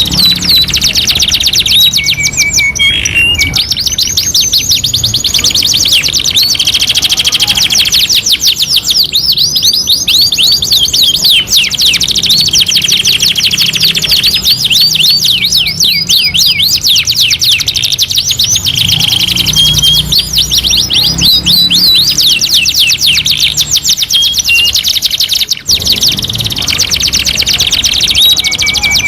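Domestic canaries singing continuously: long rapid trills and rolls of fast repeated high notes, with hardly a pause.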